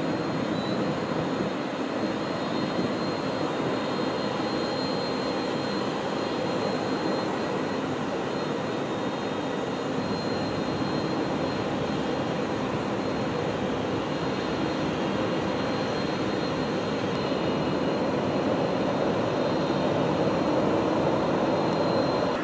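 Jet engines of a Ryanair Boeing 737-800 airliner: a steady noise with a thin high whine, growing a little louder near the end.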